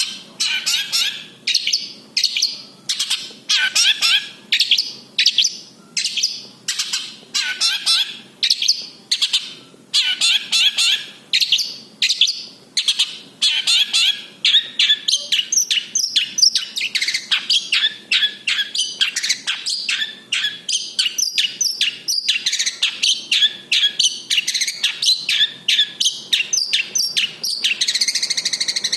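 Long-tailed shrike (cendet) singing continuously in a varied song packed with mimicked phrases of other birds. Short chattering bursts come about a second apart, then give way to rapid repeated notes about three or four a second, with a harsh buzzy phrase near the end.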